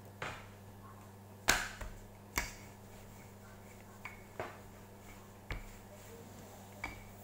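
Sharp knocks and taps of a wooden rolling pin being handled on a wooden pastry board, about eight in all, the two loudest close together about a second and a half in. A steady low hum lies underneath.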